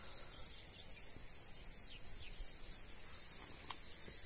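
Quiet open-field ambience: a steady, high insect trill with a few faint bird chirps, and a soft click about three and a half seconds in.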